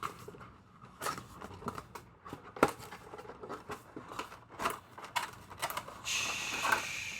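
Cardboard and plastic toy packaging being handled and pried open: irregular crinkles, clicks and scrapes, with a longer steady scraping or tearing sound near the end.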